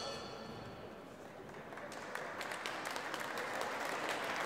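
Crowd applauding at the end of a fight round, the clapping swelling about two seconds in.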